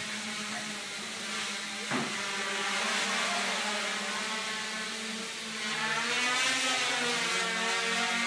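Homemade quadcopter's four brushless motors (E-max 2215/09) spinning 8-inch propellers in flight, a steady whirring buzz whose pitch wavers up and down as the motor speeds change. A short knock about two seconds in, and the buzz grows louder from about six seconds.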